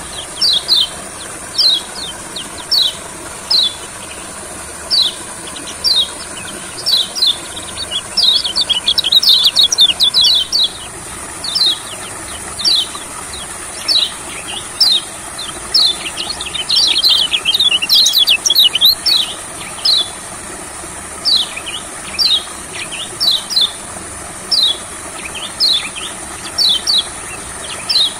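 Kecial kuning, a white-eye, calling with short, quick down-slurred chirps about one every half second to a second. Twice it breaks into a fast chattering run of notes.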